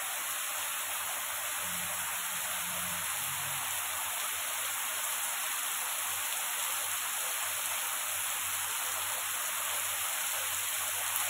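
Heavy rain falling steadily on leaves and on a paved surface, a dense, even hiss of drops that does not let up.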